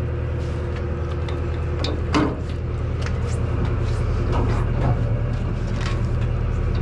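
Steady low engine drone aboard a party fishing boat, with a single sharp knock about two seconds in.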